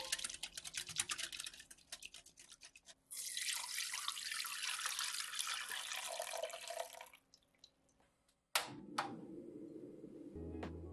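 Wire whisk beating a thin milk, egg-yolk and cornstarch batter in a glass bowl: rapid clinks that thin out over the first few seconds. Then the batter is poured in a steady stream through a fine-mesh strainer into a pot for about four seconds before stopping, followed a little later by a sharp knock.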